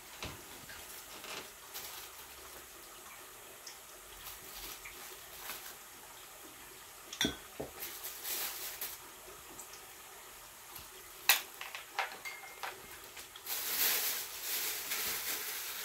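Scattered clinks and knocks of dishes and utensils in a small kitchen, a few sharper clinks in the middle. Near the end a steady hiss starts and keeps going.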